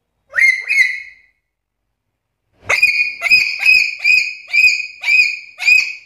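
Black-capped lory giving high whistled calls: two quick calls near the start, then after a short pause a run of about seven calls at roughly two a second, each sweeping up and then held level.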